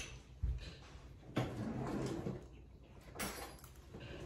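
Small handling sounds while tasting: a soft low thump about half a second in, a rustling scrape lasting about a second, and a brief click near the end.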